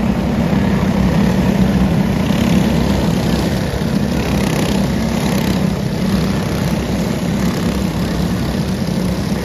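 Engines of a pack of dirt-oval racing karts running as the karts circle the track: a steady, continuous buzz.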